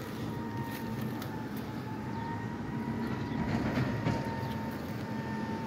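Mack MRU rear-loader garbage truck working: engine rumble with a steady high whine, swelling louder with some clatter a few seconds in.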